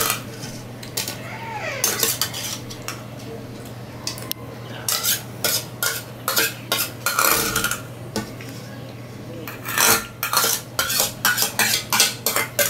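Steel spoon scraping and clinking against a stainless-steel bowl, scraping it clean of the last rice pudding. The scrapes are sparse at first, then come in a busy run in the middle and another near the end.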